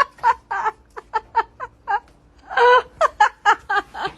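A person laughing in short, quick bursts, with one longer drawn-out vocal sound about two and a half seconds in.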